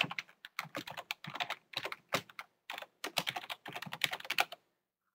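Typing on a computer keyboard: quick runs of key clicks with short pauses between words, stopping near the end.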